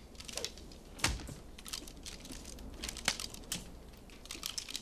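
A single-action revolver being handled, giving a scatter of irregular sharp metallic clicks and light knocks, with one louder knock about a second in.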